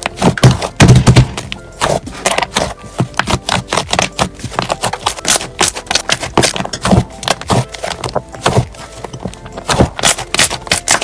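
Slime being squeezed and pressed by hand, giving a dense, irregular run of crackles and pops, loudest about a second in.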